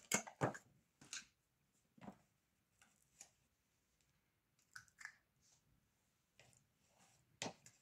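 A few faint, scattered clicks and soft taps as a scoop of soft white cheese is served onto a wooden board, the sharpest near the end.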